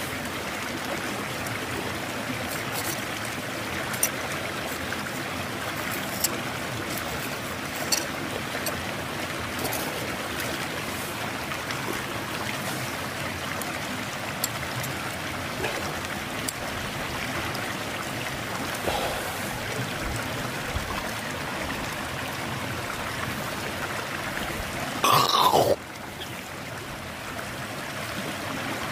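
Steady rush of a river stream, with scattered sharp clicks of a metal knife and fork on the steak and hot stone as the meat is cut. About 25 s in comes a brief loud sound that falls in pitch.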